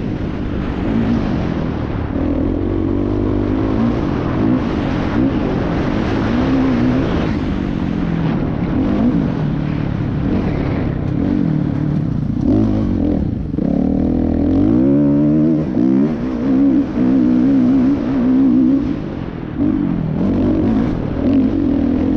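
Dirt bike engine running hard under a rider, its pitch repeatedly climbing and dropping as it revs out, shifts and backs off. A few seconds before the middle and again later it drops lower and quieter before revving up again.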